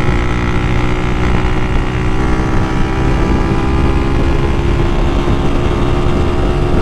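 Honda Titan 2000 motorcycle with a built 240cc OHC engine pulling hard at speed in fourth gear. The engine note holds nearly steady and creeps slowly higher, under heavy wind rush on the microphone.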